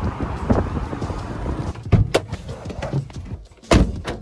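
A low rumble, then a few sharp knocks about two seconds in and a loud thump near the end: a campervan's door being handled and shut.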